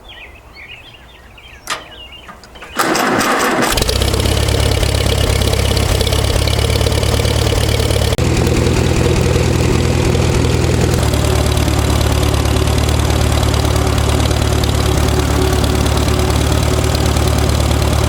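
Air compressor starting up about four seconds in, after a short hiss, then running steadily while pumping air for tire inflation.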